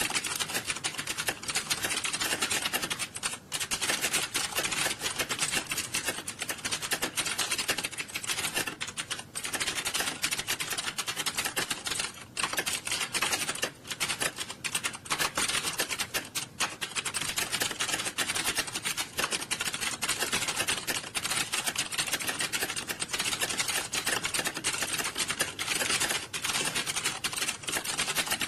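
Many computer keyboards being typed on fast at once in a typing test, a dense, continuous clatter of key clicks that thins only for brief moments.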